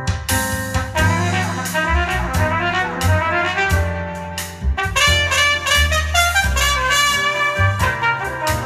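Jazz instrumental music with drums and bass, played back through a home-built speaker of a re-coned JBL D130 15-inch full-range driver and a Celestion super tweeter, driven by a Heathkit Williamson-type KT66 tube amplifier and recorded in the room.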